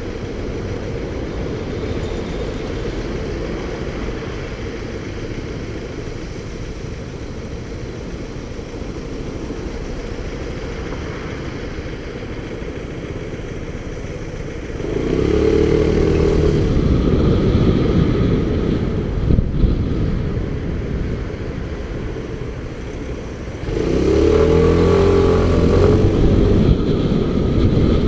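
Motorcycle engine idling steadily while stopped, then accelerating away about halfway through, the pitch rising and falling through the gears, with a second, louder acceleration a few seconds before the end.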